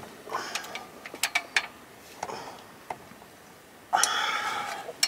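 Light clicks and taps of metal hardware in an electrical meter base as a lug and its set screw are worked into place, then a harsher scrape lasting about a second near the end.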